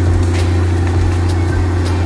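Komatsu crawler excavator's diesel engine running steadily as the machine moves on its tracks, with a few faint clanks.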